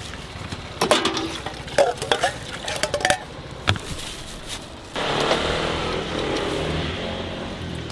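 Wire-mesh strainer and utensils clinking and knocking against a stainless-steel pot as cooked thin wheat noodles are dipped in hot water. About five seconds in, a steady hiss from the stove starts suddenly.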